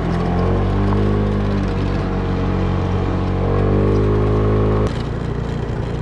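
Vehicle engine pulling under throttle, its note climbing steadily for several seconds, then dropping suddenly about five seconds in as the revs fall.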